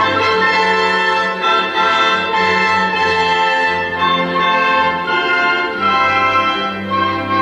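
Orchestral music with brass and strings playing slow, sustained chords, heard over a theater's sound system.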